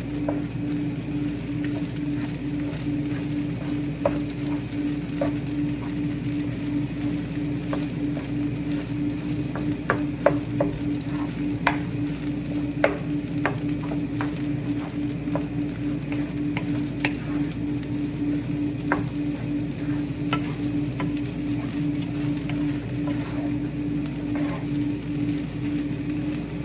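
Fried rice with scrambled egg sizzling in a nonstick frying pan while a wooden spoon stirs and scrapes through it, with scattered light clicks of the spoon against the pan. A steady low hum runs underneath.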